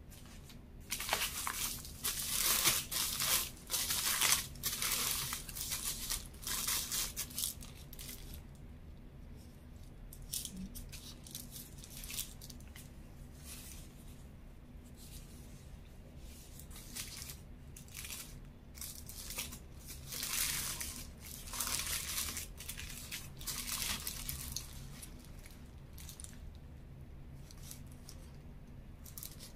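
Paper burger wrapper and paper bag crinkling and tearing as a fast-food burger is unwrapped, busiest in the first seven seconds, then scattered softer rustles of the wrapper in the hands.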